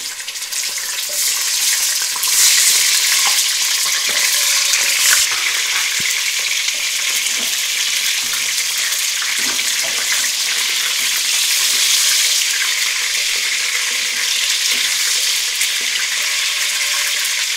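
Raw chicken leg pieces sizzling loudly in hot ghee in a pan, turned now and then with a wooden spoon that gives a few light knocks. The sizzle swells about two seconds in, then holds steady.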